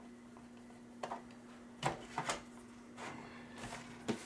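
Screwdriver and the sheet-metal casing of a computer power supply being handled as its cover screws come out: a handful of short clicks and clinks, the loudest about two seconds in, over a steady low hum.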